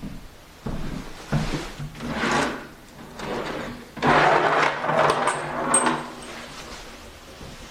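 A wooden desk drawer being pulled open: wood scraping on wood for about two seconds, with a low rubbing buzz, about four seconds in. Shorter knocks and scrapes come before it.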